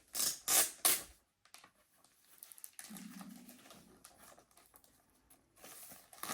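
Plastic wrapping on a product box being torn and crinkled by hand: three quick rasps in the first second and more crinkling near the end. A brief low hum sounds once around the middle.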